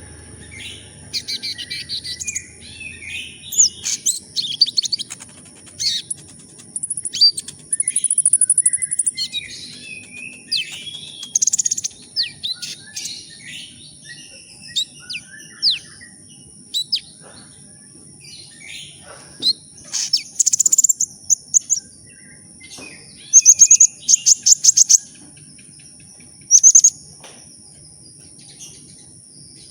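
Sunbird (kolibri ninja) singing: quick high-pitched chirps and fast rattling trills in short irregular bursts, with a steady thin high tone underneath.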